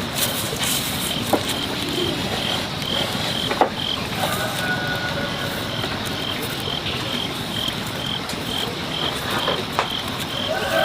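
Cricket chirping in short, evenly spaced high-pitched pulses about twice a second, over a steady background hiss with a few scattered clicks.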